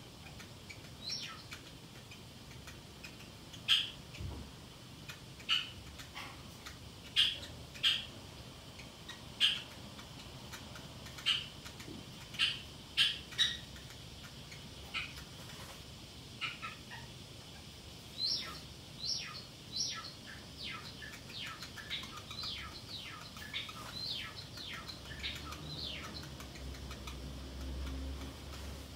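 Pacific parrotlet chirping: short, high single chirps every second or two, then from about two-thirds of the way in a quicker run of falling chirps, two or three a second.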